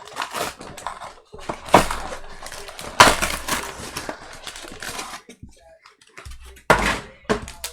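Trading cards and their cardboard and plastic packaging being handled: an irregular run of rustles, scrapes and sharp clicks, with a brief lull a little past the middle.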